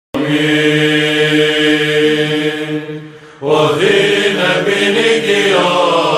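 Byzantine chant: a single note held steady for about three seconds that fades out, then the chanted melody of the canon's first ode starts about three and a half seconds in.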